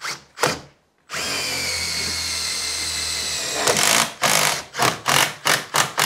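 Cordless drill driving a 110 mm self-drilling roofing tech screw up through the aluminium door frame head into steel. There are a couple of short blips, then a steady run of about two and a half seconds with a motor whine, then a string of about eight short, louder bursts as the screw is driven home.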